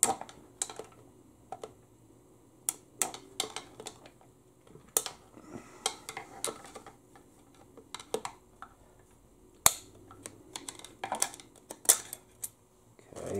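Scattered sharp metallic clicks and taps as a screwdriver pries a snap ring out of the clutch drum of a Toyota U140 automatic transaxle. A louder single click comes about ten seconds in, and a quick cluster of clicks follows near the end.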